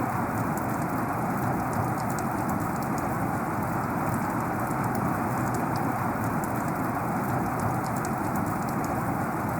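Heavy rain falling steadily: a dense, even rush with scattered sharp drop ticks.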